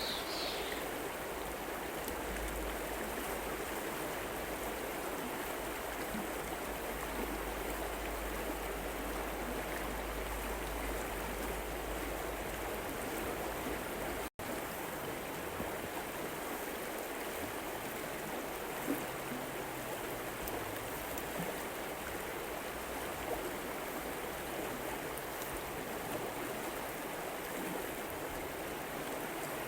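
Steady rushing of a river flowing, an even water noise that cuts out for an instant about halfway through.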